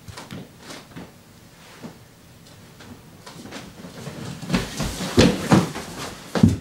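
Faint scattered clicks, then about four and a half seconds in a run of loud thumps and bumps: two people scuffling, one grabbing the other off the floor and knocking against the door and floor.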